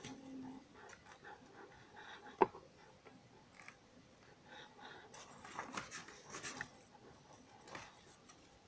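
Faint scratching and handling noises, with one sharp click about two and a half seconds in.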